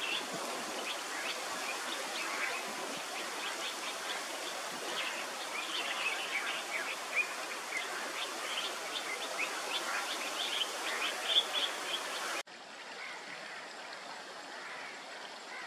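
Many short, high bird chirps over a steady rushing background. About twelve seconds in, the sound cuts abruptly to a quieter background with only a few chirps.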